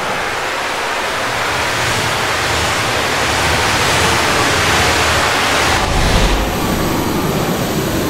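Loud rushing wind sound effect, a steady roar of air that swells slightly, with a deep rumble about six seconds in.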